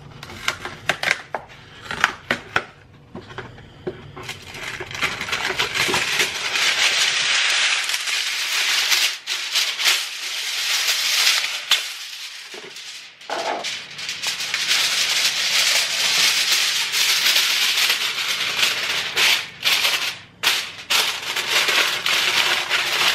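Aluminium foil being pulled off the roll, torn and crinkled as it is pressed down tightly over a disposable aluminium baking pan. A few separate clicks and taps come first, then dense, loud crinkling for most of the rest, with a brief lull about two-thirds of the way through.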